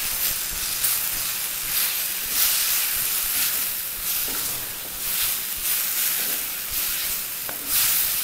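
Gongura (sorrel leaf), onion and spice mixture sizzling in hot oil in a clay pot while it is stirred with a flat ladle, the hiss swelling and fading about once a second with the stirring.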